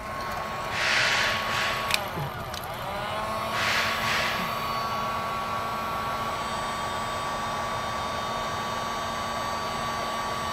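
Electric heat gun running, a steady fan whine over a rush of hot air, as it shrinks a heat-shrink butt connector on the wiring. Louder rushes of air come about one and four seconds in. The whine dips in pitch briefly around two seconds in and then climbs back.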